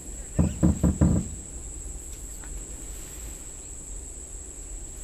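Insects keeping up a steady, high-pitched drone. Near the start, a quick run of four short, loud, low sounds stands out above it.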